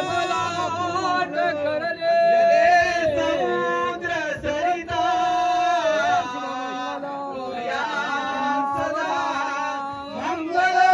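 A man chanting Marathi wedding verses (mangalashtakas) in long held notes that slide from one pitch to the next.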